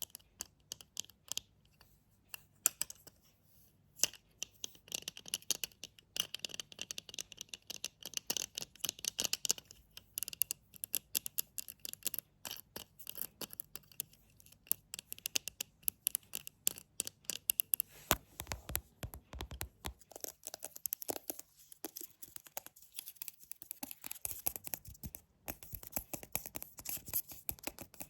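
Close-miked ASMR tapping and scratching: rapid, crisp, irregular clicks and scratches, with a brief low rumble of rubbing about 18 to 20 seconds in.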